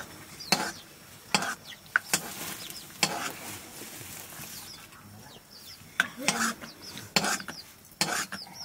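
Metal spoon stirring thick maize-flour dough in a metal pot, scraping and clacking against the pot's sides and rim in irregular strokes.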